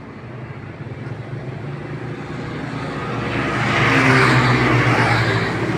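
Small motorcycles and scooters passing close by, their engines growing louder to a peak about four seconds in, then easing slightly.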